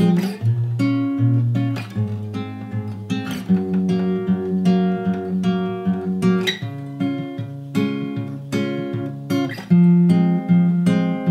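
Taylor acoustic guitar fingerpicked through chord changes: each chord starts on a bass note, then higher strings are plucked together, several notes a second.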